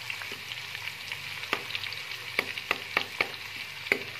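Ginger-garlic paste sizzling in hot ghee in a pan, with a steel spoon stirring and scraping it. A steady frying hiss runs under a string of sharp clinks of spoon on pan, which come thickest in the second half.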